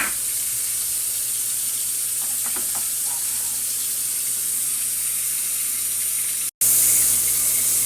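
Steady sizzling hiss from a hot pan of vegetables that water has just been poured into. It cuts out for an instant about six and a half seconds in and comes back a little louder.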